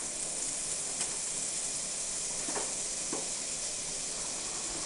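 Pat of butter sizzling as it melts into hot oil in a cast iron skillet: a steady frying hiss with a few faint pops.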